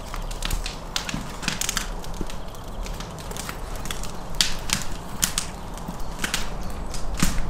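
Irregular sharp clicks and scrapes as hands work thin wire around a whole raw lamb carcass on a wooden cutting board.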